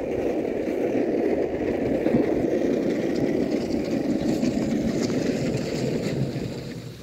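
Skateboard wheels rolling over coarse asphalt: a steady rolling noise that dies away near the end as the board slows.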